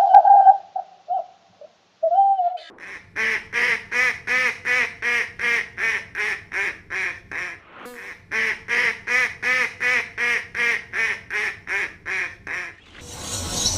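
Duck quacking in a fast, even series of about two to three quacks a second, with a short pause midway.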